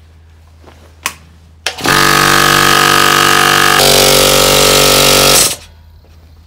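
Italian OMA single-phase 220 V piston air compressor switching on with a click and running for about three and a half seconds. Its tone shifts partway through, and it stops abruptly. This is a test run with the cylinder head sealed by an O-ring that lets air escape, so the compressor cannot build full pressure.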